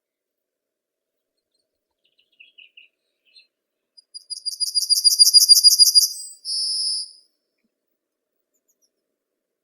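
A songbird singing: a few faint chirps, then a loud, high, rapid trill of about a dozen notes over two seconds, ending in a short buzzy note.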